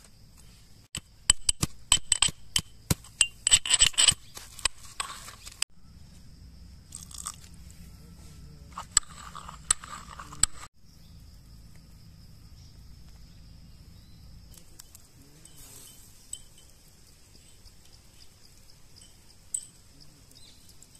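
Metal pestle pounding mint leaves and green chillies in a metal mortar: a quick run of sharp metallic clinks and crunches in the first few seconds, then softer grinding that stops abruptly about ten seconds in.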